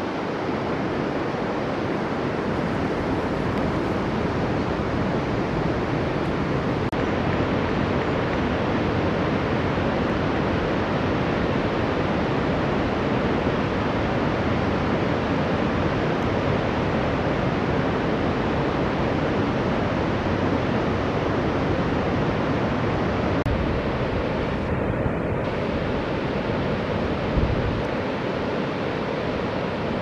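Steady rush of river water running over shallow rapids, an even noise throughout, with a short low bump near the end.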